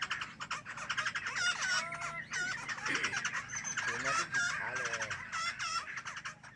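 Songbirds chirping and calling in a rapid, busy chatter of short notes and trills, with a steady low hum underneath.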